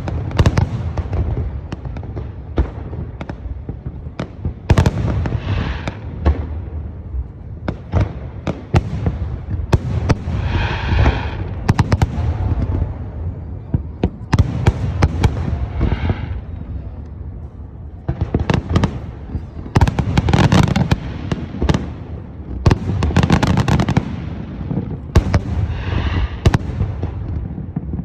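Fireworks display: a steady run of sharp bangs and booming shell bursts over a continuous low rumble, with several dense volleys of crackling bursts coming every few seconds.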